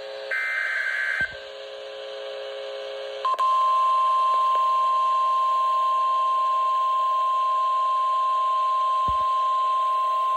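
Emergency Alert System tones: a short buzzing burst of SAME digital header data about a second long near the start, then, after a quieter gap, a loud steady single-pitch NOAA Weather Radio warning alarm tone that begins about three seconds in and holds.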